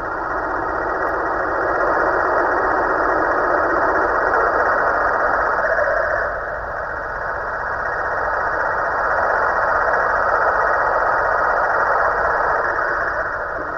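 Snoring from a snoring Halloween pumpkin: a steady, noisy snore that swells and fades in slow cycles, with loud stretches of several seconds and brief dips about seven seconds apart.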